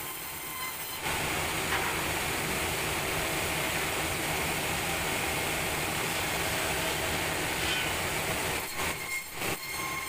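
A sawmill's band saw running steadily while a log on its wheeled carriage is pushed along the rails toward the blade. The noise gets louder about a second in and turns uneven near the end as the log reaches the saw.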